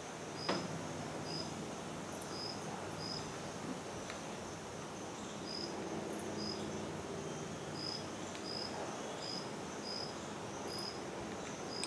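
A cricket chirping in short, high chirps, about one or two a second, over a faint steady low hum. One sharp knock about half a second in.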